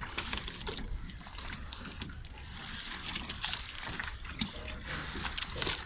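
Lagoon water lapping and sloshing against the hulls of moored gondolas in irregular splashes.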